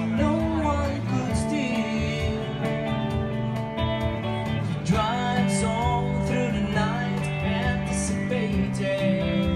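Live lounge music: a singer with electric guitar over a bass line and a steady light beat, played through the room's speakers.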